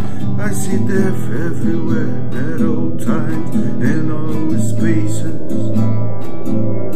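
Music: a nylon-string classical guitar strummed in steady chords, with a man singing over it.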